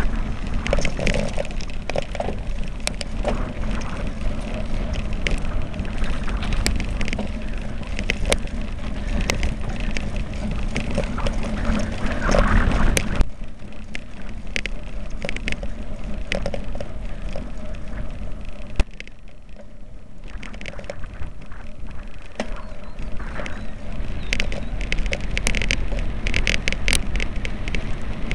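Tyres rolling over a rough dirt track on a fast downhill ride, with constant rattling and knocking from the camera mount and wind buffeting the microphone. It is louder and busier at first, eases off about halfway through, then builds again near the end.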